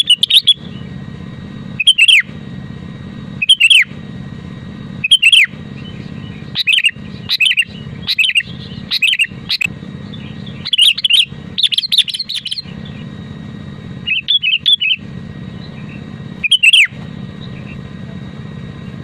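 Sooty-headed bulbul (kutilang) singing: short, bubbly phrases of quick falling notes, repeated every second or two, about a dozen in all. A steady low hum runs underneath.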